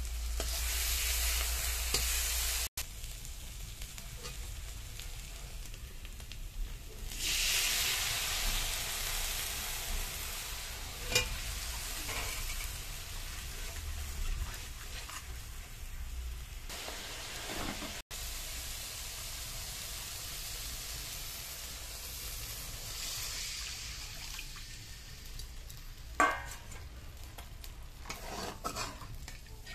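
Spice paste frying in hot oil in an iron kadai, sizzling and swelling louder in several stretches, while a metal spatula stirs and scrapes it. There is a sharp clink of the spatula against the pan about eleven seconds in and another near the end.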